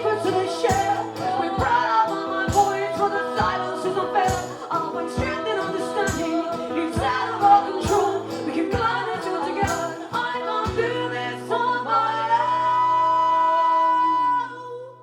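Live band music with wordless singing over a steady beat, about one thump a second. The beat stops about eleven seconds in and a held chord rings on, dropping away just before the end.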